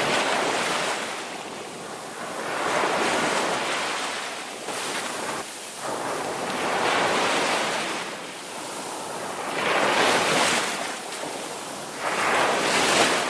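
Ocean surf: waves breaking and washing in, the rush swelling and fading five times, about every three seconds.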